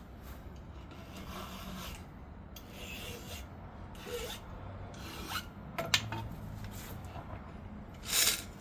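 A new file rasping across a chainsaw chain's cutter teeth in several separate strokes, hand-sharpening the chain, with a few light clicks between strokes.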